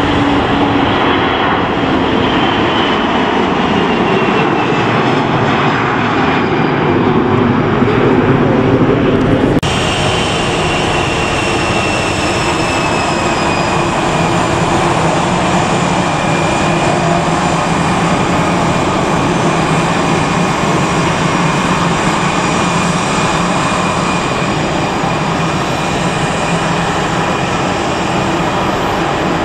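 Four jet engines of an Airbus A340 at takeoff thrust as it lifts off, a dense rush with a high whine sliding down in pitch. About ten seconds in the sound cuts abruptly to the steady jet-engine rush of a taxiing Airbus A320-family airliner, again with a whine gliding slowly lower.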